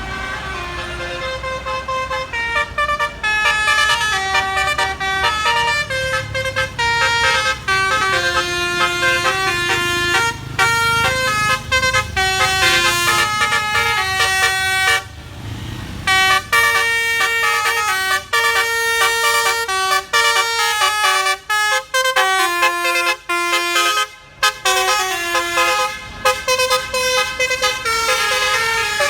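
A bus's telolet basuri multi-tone horn playing a melody of quick stepped notes, with a low vehicle rumble under the first half. The tune pauses for about a second halfway through, then runs on.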